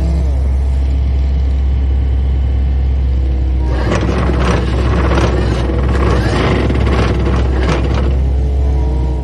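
Pile driver at work: its engine runs steadily, and from about four seconds in the hammer strikes in a rapid series of blows, roughly three a second, driving a post.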